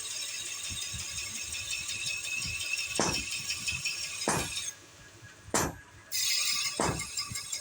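Hammer striking a sickle blade on an anvil, four sharp ringing metal blows about one every second and a quarter, starting about three seconds in. A steady high hiss runs under it and cuts out briefly in the middle.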